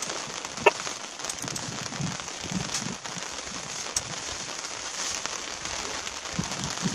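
Steady rain pattering, with one sharp click a little under a second in.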